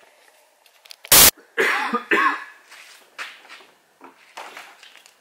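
A loud sharp knock about a second in, then a person coughing twice, followed by a few faint knocks.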